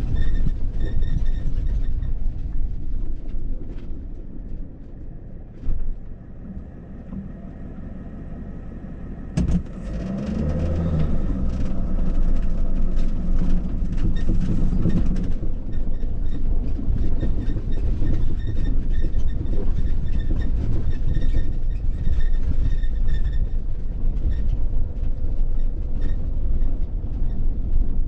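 Mercedes-Benz Sprinter 4x4 camper van crawling over a rough, rocky dirt track: a continuous low rumble with the cabin rattling and jolting over the bumps. It eases off for a few seconds about a third of the way in, then a pitched sound rises over the rumble for several seconds.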